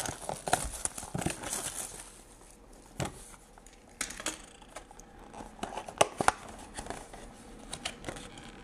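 Plastic shrink-wrap crinkling and cardboard rustling as a 2020 Topps Archives Signature Series card box is unwrapped and opened by hand. The rustle is densest in the first two seconds, followed by scattered sharp clicks and taps, the strongest about three, four and six seconds in.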